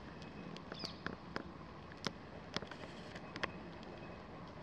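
Quiet outdoor background noise with a faint steady hum, and a scatter of short sharp clicks, about eight of them, bunched in the first three and a half seconds.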